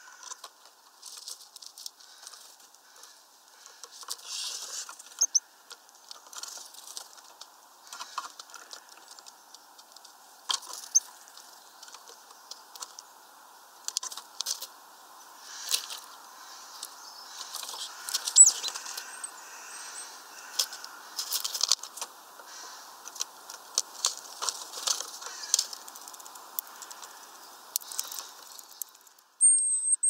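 Great tits and a European greenfinch at a seed tray: irregular sharp taps and clicks of beaks pecking at and cracking sunflower seeds, growing busier from about ten seconds in.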